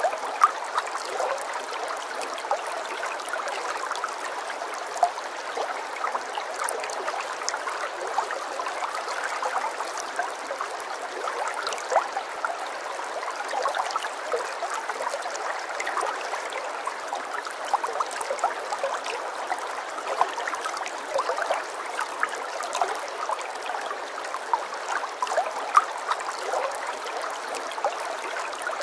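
Running water trickling steadily, with many small splashes and gurgles throughout.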